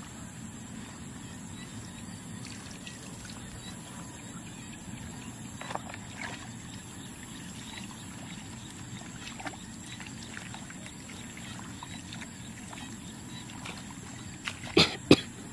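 Water sloshing with scattered small splashes and drips, then two sharp impacts close together near the end.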